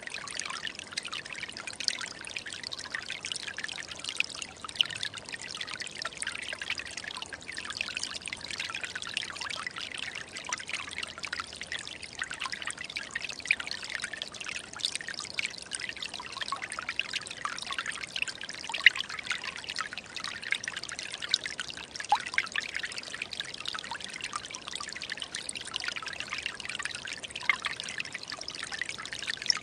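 Small forest stream running steadily, a constant trickle and splash of water with many small quick splashes.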